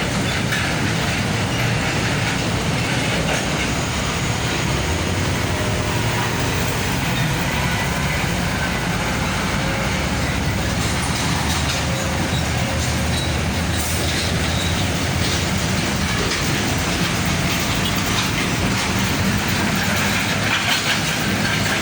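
Heavy trucks passing on a road, a steady loud rumble of engines and tyres with no break.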